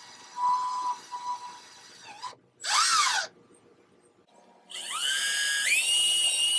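Small handheld power drill run in short bursts while drilling mounting holes in a fiberglass boat hull. It gives a brief steady whine near the start, spins up and straight back down about three seconds in, then from about five seconds climbs in steps to a high, steady whine.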